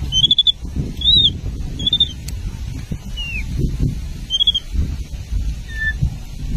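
Baby macaque giving short, high-pitched chirping squeaks, roughly one a second, each a quick rise and fall in pitch, over a low rumbling background.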